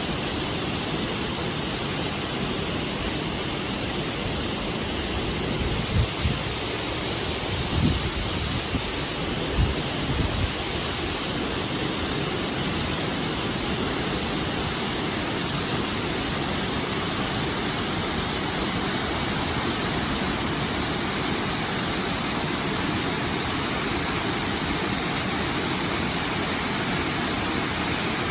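Steady rush of Baker's Falls, a 20 m waterfall, falling over a wide rock into a gorge. A few short low thumps come between about six and ten seconds in.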